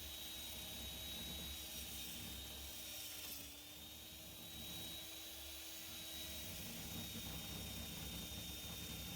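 Antique power drill running with a steady whine over a hiss. Its pitch sags briefly about three and a half seconds in.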